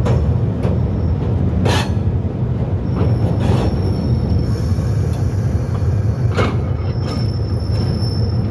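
Locomotive running along the track with a steady low rumble. Its wheels knock sharply over rail joints a handful of times at uneven intervals, and a faint thin high wheel squeal comes and goes.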